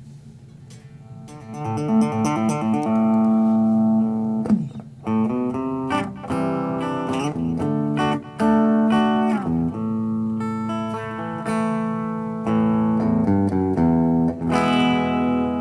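Electric guitar on its bridge pickup played through a Roland Cube 20X practice amp set to its acoustic simulator, a series of ringing guitar notes that begins about a second and a half in.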